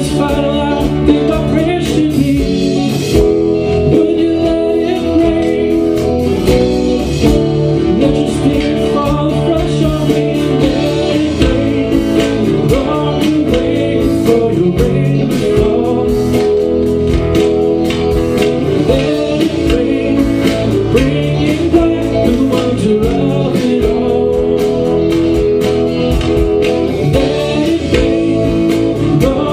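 Live worship band playing: electric guitars over a drum kit, with singing.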